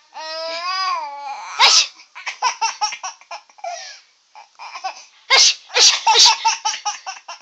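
A person's fake sneeze, a drawn-out 'ah' ending in a sharp burst, and a baby breaking into belly laughs in quick bursts. A second loud burst about five seconds in sets off another run of laughing.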